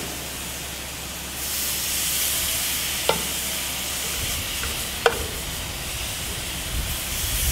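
Marinated pork loin sizzling on a hot grill grate as raw pieces are laid on: a steady hiss that swells about a second in. Two short clicks stand out in the middle, and a low rumble joins in the second half.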